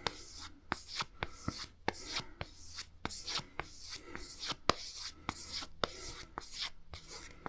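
Mora Garberg's Scandi-ground knife blade being stropped on leather: quick back-and-forth strokes, about three a second, each a light swish ending in a small tick.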